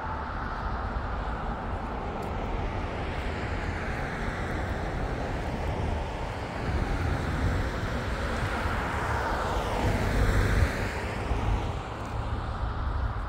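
A vehicle passing by, growing louder to a peak about ten seconds in and then fading, over a steady low rumble.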